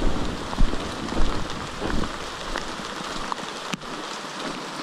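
Light rain falling on wet forest foliage: a steady hiss dotted with scattered sharp ticks of drops. A low rumble of wind on the microphone drops away about three seconds in.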